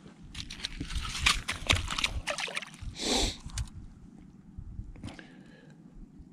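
Largemouth bass going back into an ice-fishing hole: water splashing and sloshing in the hole for about two and a half seconds, followed by a short hiss.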